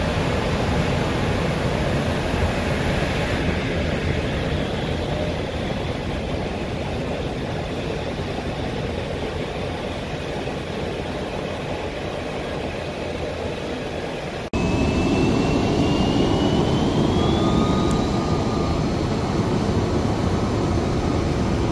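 Jet airliner engines running on an airport ramp, a steady rushing noise. After a sudden cut about two-thirds of the way through, the noise is louder and a high engine whine rises in pitch for about three seconds.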